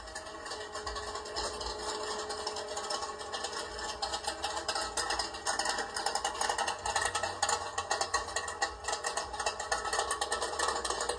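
The 1954 Chevrolet Gasser's bored-out 454 big-block V8 running, a rough, rattly engine sound.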